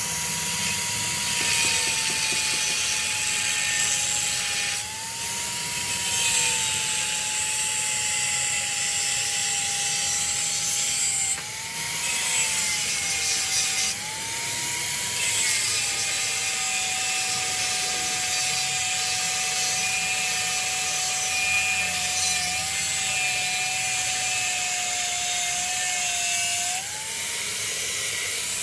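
Angle grinder with a cutting disc slicing through a steel bar: a high motor whine that sags in pitch while the disc bites and climbs back each time it is eased off, several times, the last near the end as the disc is lifted clear, over the harsh hiss of the cut.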